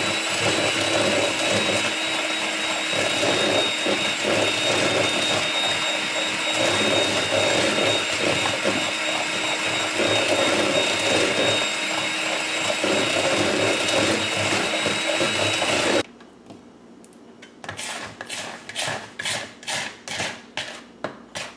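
Electric hand mixer running steadily with a constant whine, its beaters creaming butter and sugar in a mixing bowl. It cuts off suddenly about 16 seconds in, followed by a spatula scraping round the bowl in a series of short strokes.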